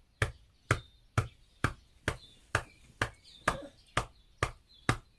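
A hand patting an elderly person's back in a steady rhythm, sharp slaps about twice a second: back percussion done to loosen phlegm that a cough cannot bring up.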